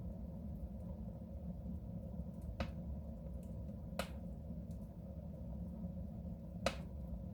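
Wood fire burning in a soapstone stove: a low steady rumble with three sharp crackling pops, the last one the loudest.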